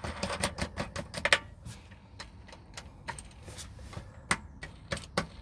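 Irregular small clicks and rattles of a star-shaped thumb screw being handled and turned onto a threaded stud on a drawer's metal mounting rail.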